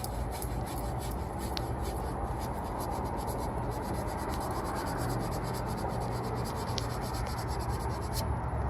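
Copper refrigerant tubing being sanded by hand with an abrasive: a steady back-and-forth rasping as the tube end is cleaned to prepare it for a joint.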